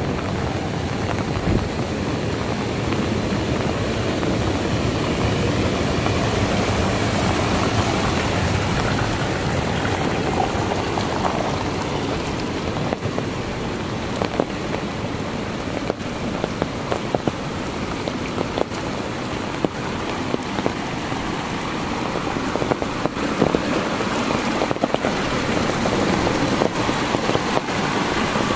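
Heavy rain falling in a steady hiss, mixed with muddy runoff water rushing down a ditch channel. Scattered sharp taps of drops land close by.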